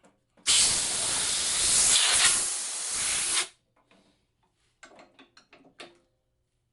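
Compressed air blown in one steady three-second blast, clearing sanding dust off a fretboard. It starts and cuts off sharply, and a few light taps follow.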